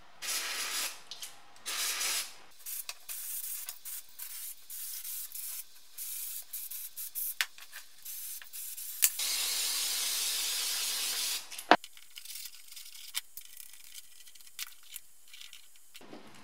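Aerosol can of STP carb spray cleaner sprayed onto wiring loom connectors in repeated hissing bursts, mostly short, with one longer spray of about two seconds starting around nine seconds in. A single sharp click follows near twelve seconds, then soft cloth rubbing as the loom is wiped down.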